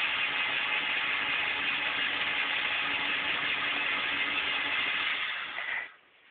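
Electric pencil sharpener running as a pencil is ground: a steady motor hum with a grinding rasp, which fades slightly and cuts off about six seconds in when the sharpener stops.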